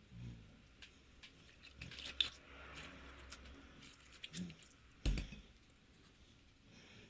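Slime being squished and worked by hand: scattered small sticky clicks and crackles, with one louder thump about five seconds in.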